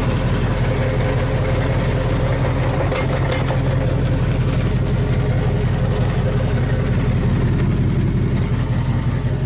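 Old pickup truck engine idling steadily, heard from under the truck at the exhaust, which runs through a rattly old muffler that is due for replacement.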